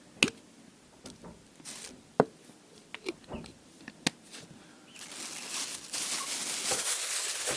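A few sharp clicks and knocks of handling the can and filter, then from about five seconds in a steady hiss of air-filter impregnation being sprayed onto the washed trimmer air filter.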